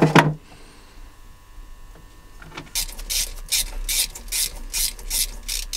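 Small socket ratchet clicking in quick repeated strokes, about three or four a second, starting a little over halfway through: working the corroded nuts off a marine diesel's cast-iron exhaust elbow.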